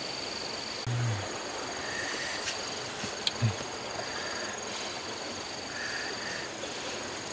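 Insects calling with steady high-pitched trills that stop and start, over the hiss of flowing stream water. A few small splashes and clicks come from hands working in wet mud.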